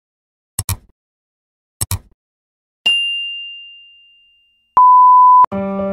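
Like-and-subscribe animation sound effects: two quick double mouse clicks, then a single bright bell ding that rings out and fades, then a short steady beep. Piano music starts near the end.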